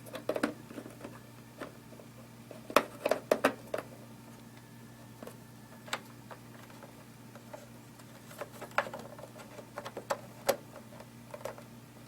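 Scattered plastic clicks and light rattles of tail light wiring and bulb-socket connectors being tucked into the housing and locked in place, in short clusters over a low steady hum.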